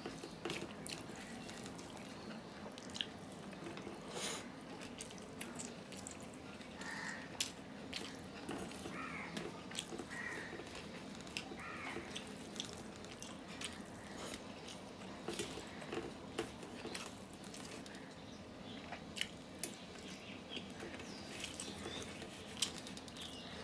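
A hand mixing and gathering rice with mashed fish on a steel plate: soft scraping with many scattered sharp clicks of fingers against the metal.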